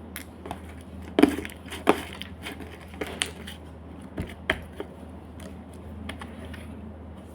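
Slime being squeezed and stretched by hand, giving off a scattered series of sharp clicks and pops as trapped air bursts, the loudest two within the first two seconds.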